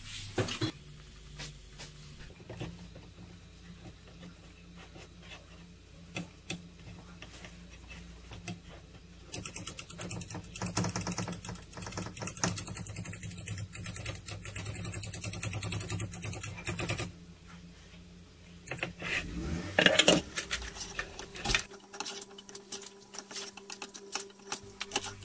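A stiff flour, milk and butter dough being stirred frantically in a saucepan: the utensil clatters against the pan in a fast, rattling run of knocks. The knocks are scattered at first, come thick and fast through the middle, pause briefly, then return as a few loud knocks and scattered clicks.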